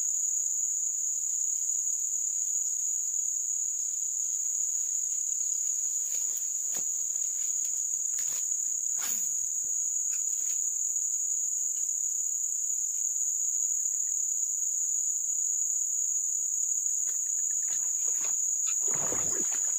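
Insects droning steadily at a high pitch, with a few faint clicks in the middle and a short, louder whoosh near the end.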